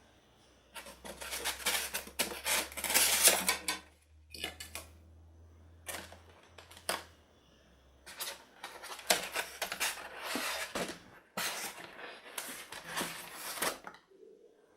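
A toy RC car and its cardboard-and-styrofoam packaging being handled: irregular bursts of rustling, scraping and light plastic clattering, with short pauses around 4 and 7 seconds in.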